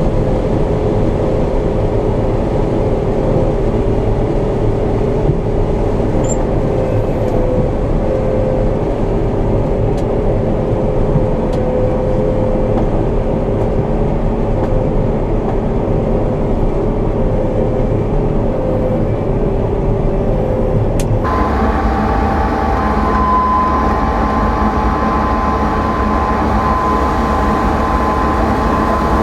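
John Deere 9500 combine harvester running with a steady mechanical drone and whine. About two-thirds of the way through the sound changes abruptly, the whine jumping to a higher pitch.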